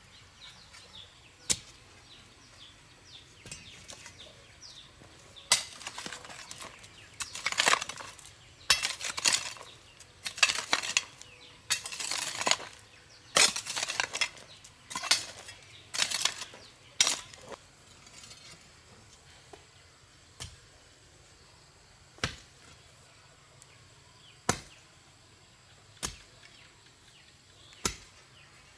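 A series of sharp hard knocks and clinks: a quick run of scraping strikes through the middle, then single knocks about every two seconds.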